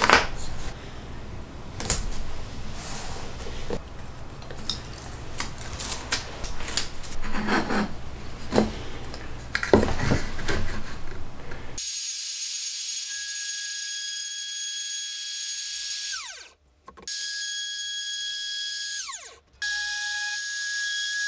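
Small wooden pieces knocked and shuffled on a board, then, about halfway through, a compact trim router running with a steady high whine as it routes slots in a wooden block. It is switched off twice, its pitch falling as it spins down, and started again each time.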